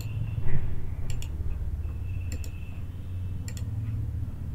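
Faint sharp clicks, often in quick pairs, repeating about once a second over a low steady hum, with one louder knock about half a second in.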